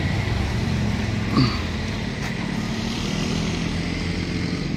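Avanza's engine idling steadily through a newly fitted aftermarket exhaust: a JS Racing bass-type muffler and a Scott resonator, with a straight pipe in place of the centre box. A short chirp about a second and a half in.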